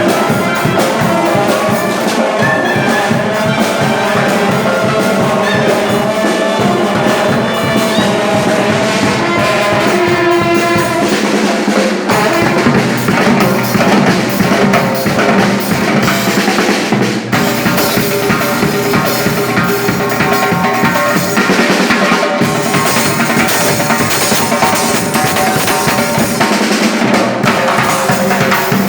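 Loud band music with a driving drum-kit beat under melodic instruments.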